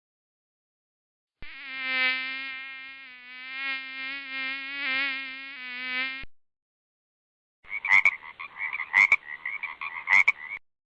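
A flying insect's steady buzz, low-pitched and wavering slightly, for about five seconds. After a short silence, a different rasping animal call with several sharp clicks runs for about three seconds.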